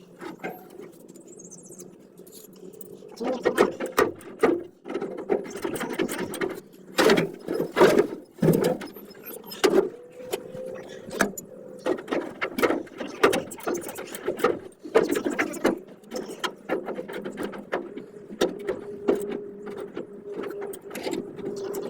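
Irregular clicks and knocks of metal being worked on a swamp cooler, most densely in the middle, over a steady hum, with a steady tone in the last few seconds: the blower's rear bearing being replaced.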